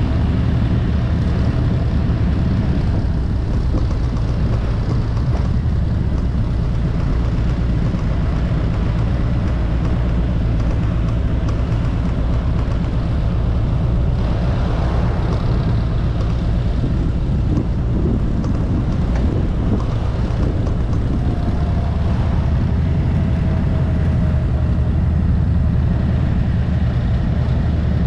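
Harley-Davidson touring motorcycle running steadily at highway speed, its engine rumble mixed with wind rushing past the rider-mounted microphone.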